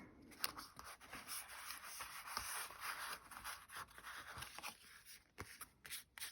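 Faint scraping and rubbing of paper card being handled and pressed down at the craft table, followed by a few light taps near the end.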